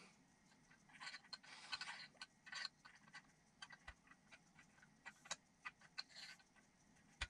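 Faint, scattered clicks and light scraping as the top knob of a G-Force Spring Rate Gauge V2 is handled and turned.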